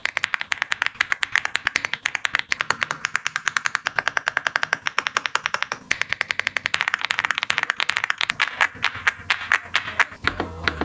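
Fast typing on a Zifriend RX75 Pro, a gasket-mounted mechanical keyboard with Blue Light switches and PBT keycaps: a dense run of quick keystroke clacks, many a second, easing off briefly about six seconds in and again near the end.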